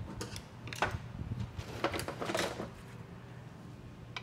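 Metal parts inside a Ford 4R70W automatic transmission case scraping and clinking as they are worked by hand: a few short scrapes in the first two and a half seconds, then only a low steady hum.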